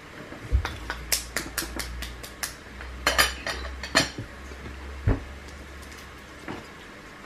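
Plastic blender cup knocking on the table as it is lifted and, about four and a half seconds later, set back down, with a run of light clicks and clinks of handling in between and a faint low hum while it is held.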